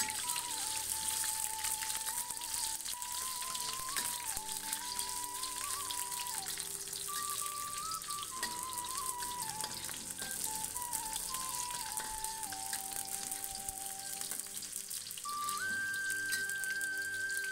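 Oil sizzling and crackling in a wok as chopped aromatics and spices fry in it. Background music with a single high melody line plays over it, rising to a higher held note near the end.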